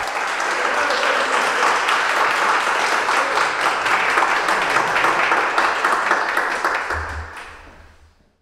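A small audience applauding with dense, steady clapping that fades away near the end.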